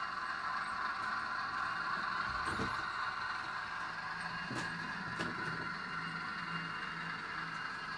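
HO scale model train running on the layout: a steady mechanical hum, with a few light clicks partway through.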